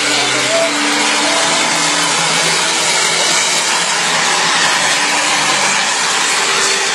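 Jet turbine of a radio-controlled model jet running steadily while the jet hangs nose-up in a hover, a continuous rushing roar.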